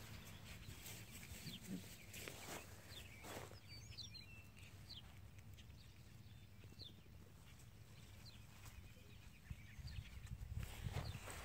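Faint rustling in grass from puppies play-wrestling, with a few faint short high chirps in the middle and a low rumbling near the end.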